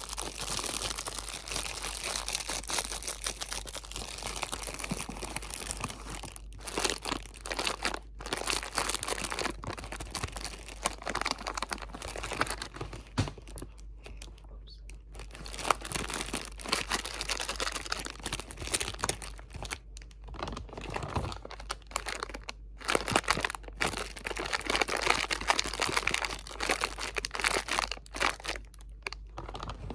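Close-miked crinkling of crinkly material, dense crackling handled almost without pause, with a few brief stops along the way.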